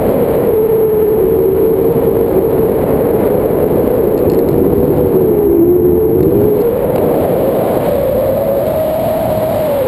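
Loud wind rushing over an action camera's microphone in tandem paraglider flight, with a wavering whistle that dips around the middle and rises in pitch toward the end.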